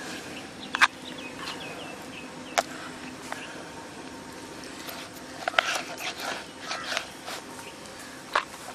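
A kitchen knife knocking on a plastic cutting board as raw goat liver is sliced: a few sharp knocks spread through, the loudest about a second in, with a quicker run of them past the middle.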